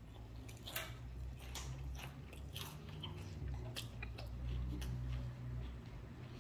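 Someone chewing a crispy deep-fried spring roll: irregular crunches of the fried wrapper, with a low rumble underneath.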